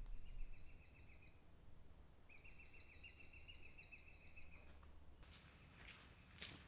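A bird calling faintly in two rapid trills, each a quick run of repeated notes. The first lasts about a second and a half, and the second, starting about two seconds in, lasts about two and a half seconds.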